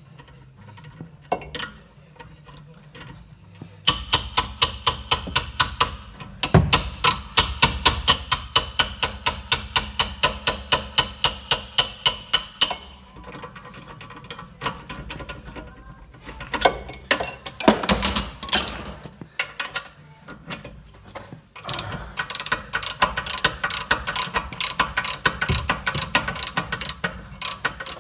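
Socket ratchet wrench clicking as it turns a 15 mm bolt on the rear brake caliper assembly. A long run of about four clicks a second, then a pause and two shorter runs of clicking.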